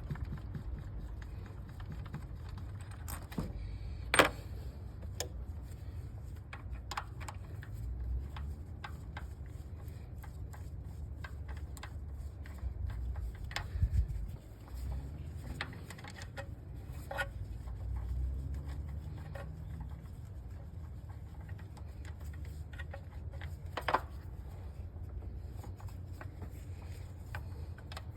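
Scattered light clicks and clinks of hand tools and metal parts being handled, with a sharp one about four seconds in and another near the end, over a steady low hum.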